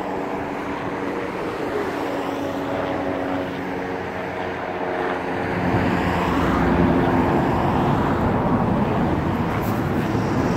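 A steady engine drone with several held tones that slide slightly in pitch, getting louder about six seconds in.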